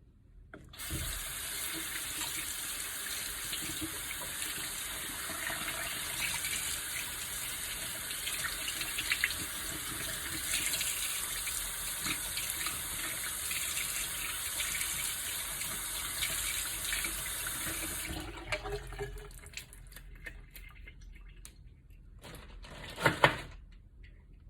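Tap water running steadily into a sink, then shut off after about seventeen seconds; a brief second gush of water comes near the end.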